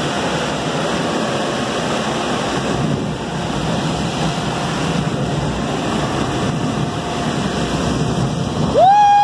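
Steady rush of wind and road noise inside a car's cabin at very high speed. Near the end a loud, high, wavering voice cuts in.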